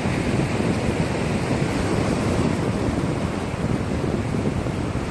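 Wind rushing and buffeting on the microphone over the wash of sea surf against a rocky shore.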